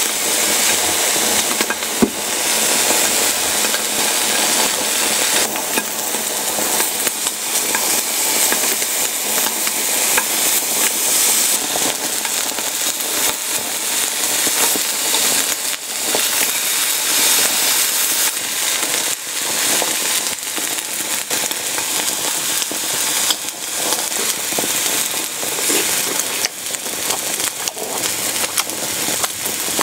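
Slices of raw beef tongue sizzling on a hot griddle: a steady frying hiss with scattered pops and crackles.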